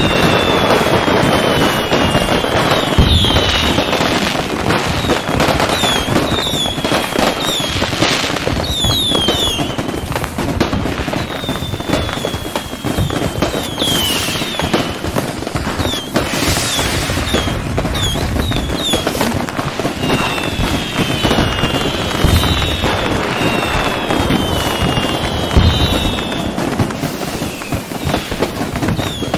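Fireworks display: continuous crackling and popping, with many short whistles gliding down in pitch and a few deeper booms.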